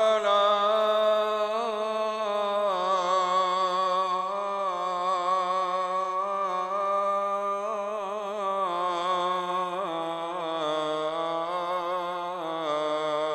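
Man chanting the Islamic call to prayer (adhan), one long melismatic phrase held and ornamented with wavering turns, its pitch stepping lower in the last few seconds.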